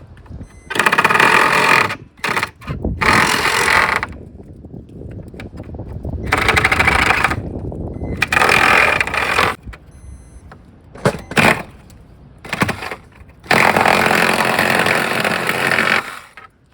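Handheld power saw cutting in about five short bursts of one to two and a half seconds, stopping and starting between them, as a little material is trimmed away to make a new door lock fit.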